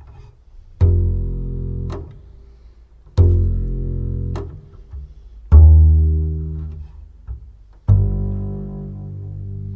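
Slow, sparse bass line: four deep plucked notes about two and a half seconds apart, each starting sharply and fading as it rings, the first two stopped short with a click.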